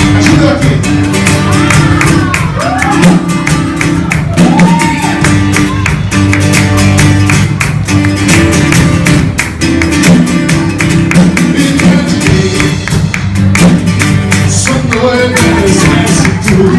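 Instrumental passage of a gospel worship song: band music led by guitar over bass and a steady beat.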